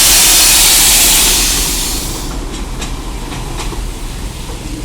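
A loud rushing hiss that dies away about two seconds in, leaving a lower rumbling background noise with a few faint clicks.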